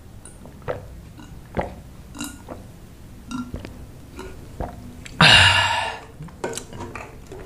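A person gulping a bottled milk drink, with soft swallowing clicks every second or so. About five seconds in, as the bottle comes away from the mouth, there is one loud, throaty exhale lasting under a second.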